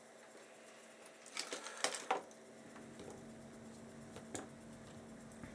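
A few light clicks and taps of small tools handled during soldering on a headset's circuit board, about a second and a half in, near two seconds and once more past four seconds, over a faint steady hum.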